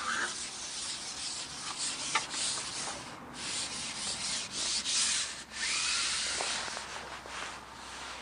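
Wind, a rustling hiss that swells and fades in gusts, with one sharp click about two seconds in.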